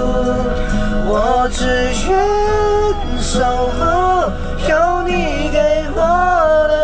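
A voice singing a song over backing music, holding notes that waver with vibrato.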